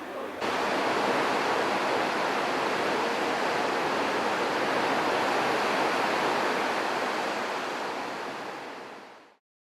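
Steady rushing noise that starts suddenly and fades out near the end.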